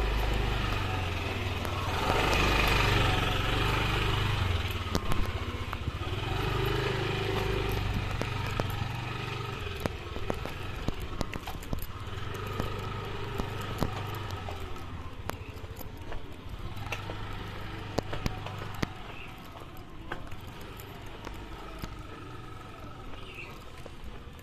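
A motorcycle engine running close by, loudest about two to four seconds in and then fading away over the next several seconds, with scattered light clicks and knocks.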